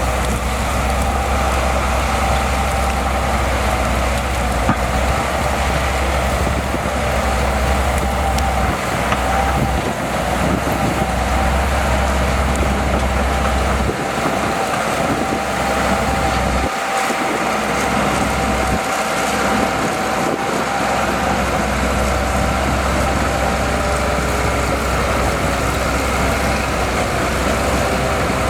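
Heavy crawler bulldozer (Shantui DH17C2) running steadily under its diesel engine, with a steady high whine over the engine noise. The low rumble dips out briefly a couple of times around the middle.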